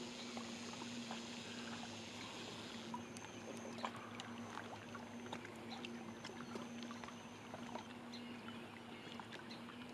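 Faint water lapping against a rocky lake bank, with a few light ticks.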